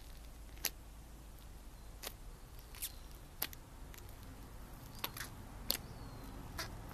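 Crunchy slime being pressed and stretched by hand, giving off sharp, brief crackles and pops at irregular intervals, about seven in all.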